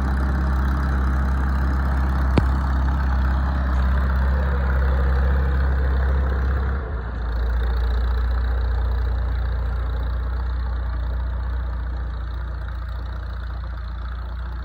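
Vintage tractor engine running steadily at low speed as it drives, with one sharp click about two seconds in. The sound dips briefly about seven seconds in, then slowly fades as the tractor moves away.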